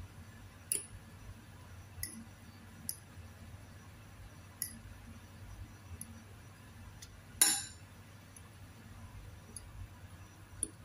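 Metal fork clinking against a glass bowl while stirring instant noodles: scattered light clinks, with one louder clink about seven and a half seconds in.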